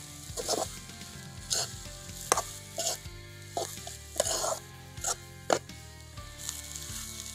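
A spoon scraping and clinking against an aluminium kadai while drumstick leaves and grated coconut are stirred, in about eight short, uneven strokes with pauses between.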